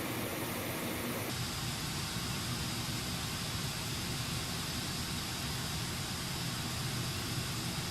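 Steady hiss of a pink-noise test signal played through a small Bluetooth speaker. About a second in, its tone colour changes abruptly as playback switches over.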